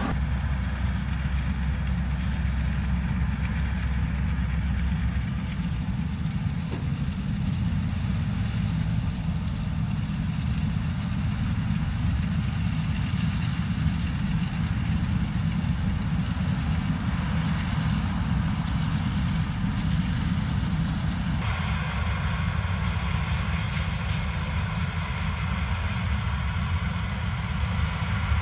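Heavy diesel farm machinery running steadily with a low rumble and a whir of noise above it. About twenty seconds in, the higher whirring grows louder and stays that way.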